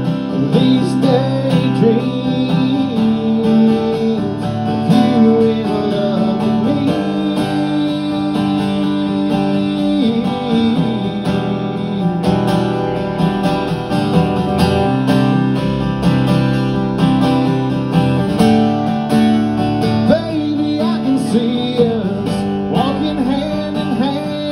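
Steel-string acoustic guitar strummed through chord changes in an instrumental break of a slow country song.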